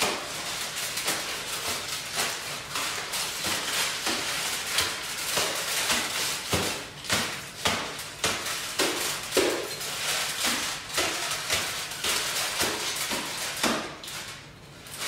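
Homemade soundsuit of aluminium-foil arm wrappings and a cardboard box crinkling and rattling as the wearer moves, with a crackle of irregular sharp taps and clicks that thins out near the end.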